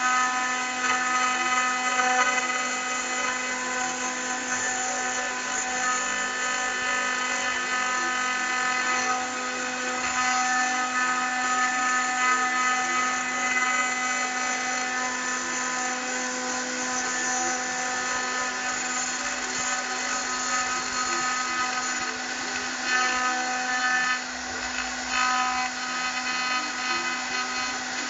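CNC machine spindle running as the cutter engraves lettering into aluminium: a steady, drill-like whine made of several held tones, its loudness wavering slightly as the cutter works.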